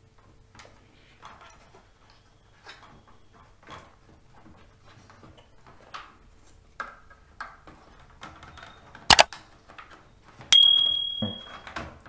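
Small clicks and taps of a laptop motherboard being handled and seated back into its plastic chassis. There is a loud click about nine seconds in, and a sharp metallic clink about a second later that rings briefly.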